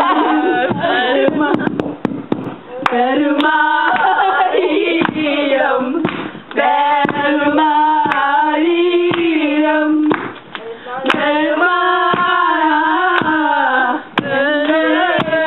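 A group of young women singing together without accompaniment, holding long notes with short breaks between phrases, with a few hand claps.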